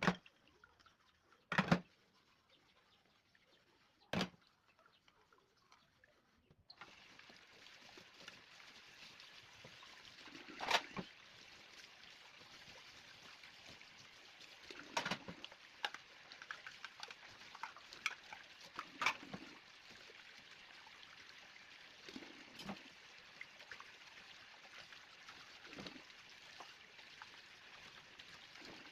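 Water starts running steadily about a third of the way in, with dishes knocking and clinking now and then; two sharp knocks of dishes come before the water starts.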